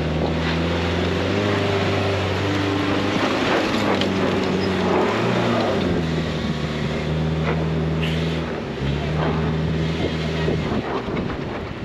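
2024 Subaru Crosstrek Wilderness's flat-four engine held at high, steady revs at full throttle on a steep, loose dirt climb, its tyres spinning and throwing up dirt. The engine note shifts pitch a couple of times and drops away shortly before the end.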